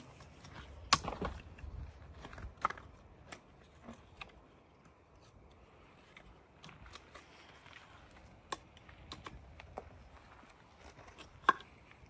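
Scattered light clicks and taps as safety caps are pushed onto the tops of upright steel rebar rods, the sharpest about a second in and again near the end.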